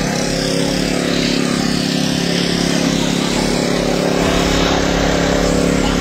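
An engine running steadily at an even speed, with a constant hiss of noise over it.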